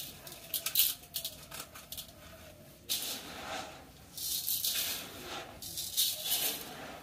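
Hands stirring and scooping granular fertilizer in a plastic basin: a dry, rattling swish of granules that comes in several separate strokes.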